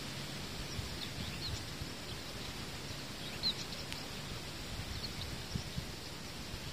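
Scattered short, high chirps of small songbirds over a steady outdoor background hiss.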